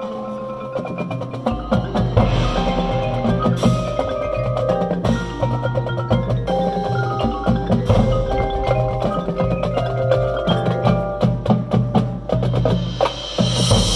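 A marching band's front ensemble playing: marimbas and other mallet percussion ring out held pitched notes over rapid struck notes. A low bass comes in about a second and a half in.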